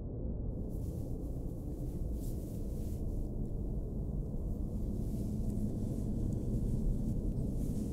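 A low, steady rumbling drone, with a faint hiss swelling in and out above it.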